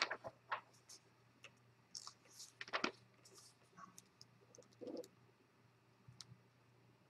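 Faint, irregular clicks and light taps over quiet room tone, the most prominent about three seconds in.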